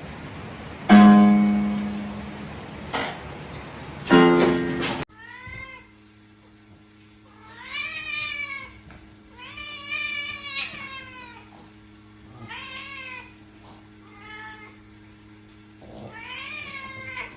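A domestic cat meowing about six times over the last twelve seconds, each meow a short call that falls in pitch, over a steady low hum. Before that, about a second in and again about four seconds in, come two loud pitched sounds.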